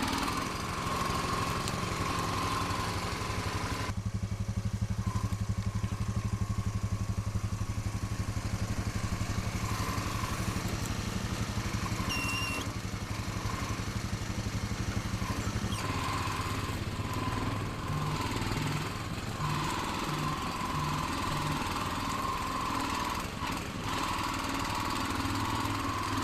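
Small engine running steadily, its note shifting about four seconds in and again about two-thirds of the way through.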